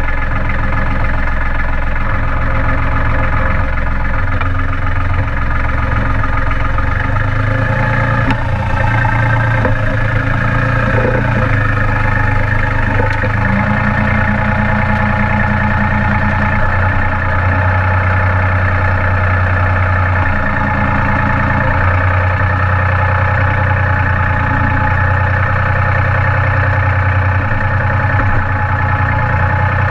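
Branson compact tractor's diesel engine running steadily while the front loader works soil, its low note shifting a few times as the load changes. A steady extra hum joins from about 13 to 21 seconds in.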